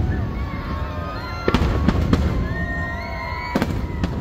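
Nagaoka aerial fireworks bursting: sharp bangs about a second and a half in, two more just after, and another near the end, over a low continuous rumble. Music plays along with the show.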